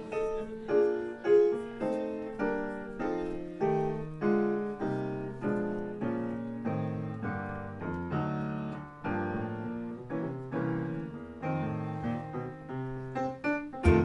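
Solo piano playing a swinging intro, chords struck at an even tempo. A sharp hit right at the end marks the rhythm section coming in.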